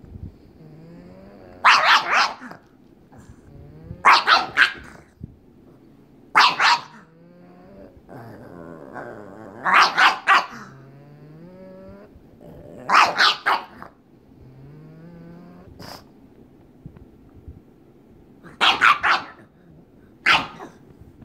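Pug play-barking in clusters of two to four sharp barks every few seconds, with low growls between: an invitation to play.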